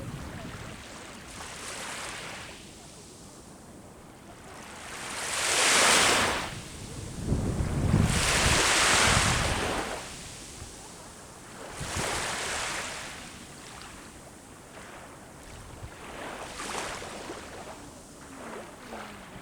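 Sea waves breaking and washing up the shore in repeated surges that swell and fade every few seconds, the biggest two in the middle. Wind buffets the microphone with a low rumble.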